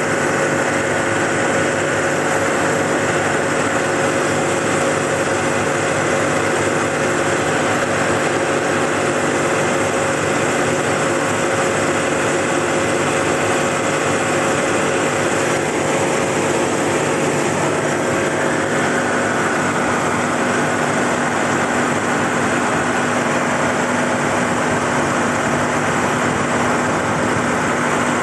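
Ford Duratorq TDCi turbodiesel pickup engine running hot at a steady 2,500 rpm. About halfway through, the viscous fan clutch engages and the rush of fan wind adds to the engine sound: the sign of a working viscous fan clutch.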